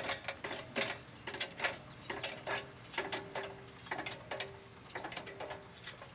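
Hydraulic jack being pumped under the lower control arm, its handle strokes making sharp metallic clicks about two to three times a second, with a faint squeak between them.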